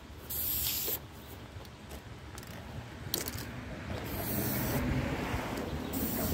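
Aerosol spray paint can hissing in several short bursts, the first and longest about half a second in, then two more near the end. Under them a car passing on the street, growing louder through the second half.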